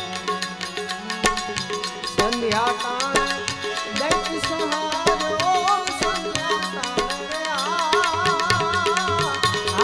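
Live Gujarati devotional folk music: a harmonium sounds sustained chords over regular tabla strokes. From about two seconds in, a male voice sings a drawn-out, wavering melodic line without clear words.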